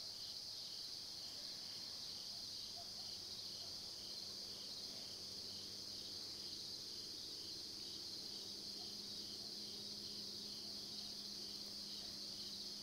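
Insects singing in a steady chorus: a continuous high drone with an evenly pulsing trill just beneath it, about two or three pulses a second.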